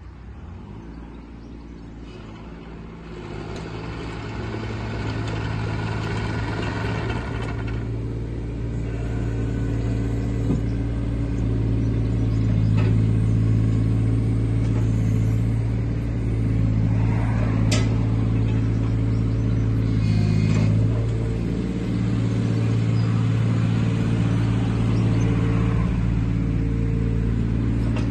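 Takeuchi TB216 mini excavator's diesel engine running at a steady speed, growing louder over the first dozen seconds as the machine tracks closer, then holding steady while the boom and arm are worked, with brief dips in pitch about twenty seconds in.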